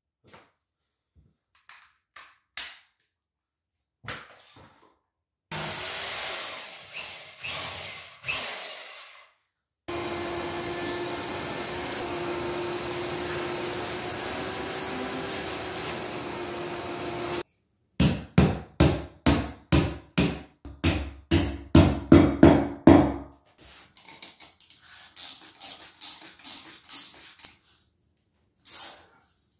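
An electric sander scuffing the concrete floor, then a shop vacuum running steadily for about eight seconds, then a run of sharp hammer blows, about three a second and then quieter, setting lag bolts into holes in the concrete slab.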